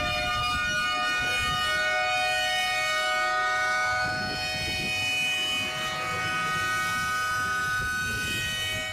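Tsunami warning siren sounding a long, steady held tone, signalling a tsunami evacuation.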